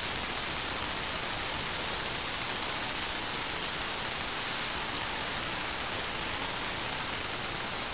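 Steady static hiss from an RTL-SDR receiver demodulating AM on the medium-wave band, tuned around 575 kHz where no station comes through.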